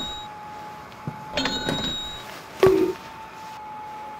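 Electronic vending-machine sound effects for a cardboard toy machine: a steady electronic tone throughout, a multi-pitched chime just after a second in, and a short, loud blip a little before three seconds in.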